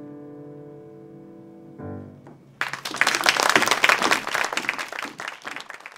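A piano's closing chord fading out, a short last chord just under two seconds in, then an audience clapping loudly.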